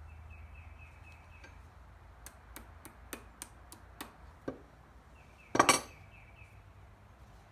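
Light metal clicks and taps of a small hand tool on the steel steering column and end cap while a cotter pin is worked into its slot, about eight sharp clicks over two seconds, then a short, loud metal clatter about five and a half seconds in.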